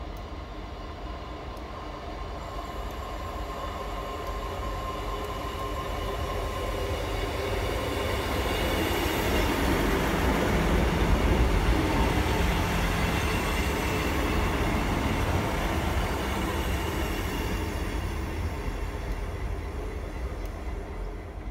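A diesel multiple unit passing on the adjacent track: its engine and wheel noise build up, are loudest about halfway through, then fade away as it leaves.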